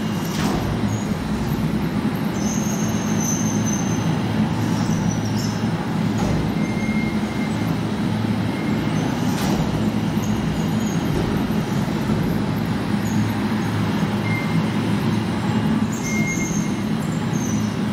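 Hanging loudspeakers of a sound installation playing noise recorded at the site of a logistics-warehouse fire: a steady, dense, deep rumbling noise with brief high squealing tones now and then.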